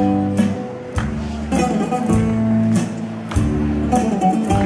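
Folk dance music: plucked and strummed string instruments over held bass notes, with a steady beat.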